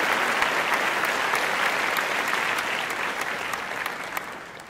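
Applause from a crowd, many hands clapping, fading out over the last second or so.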